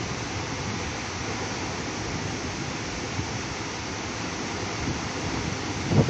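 Steady rushing of a large waterfall, an even wash of noise, with some wind rumble on the microphone.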